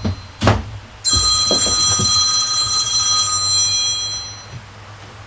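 A short knock, then a metallic clank about a second in that rings on with a clear high tone and fades out over about three seconds, as from a metal object struck on a hard surface.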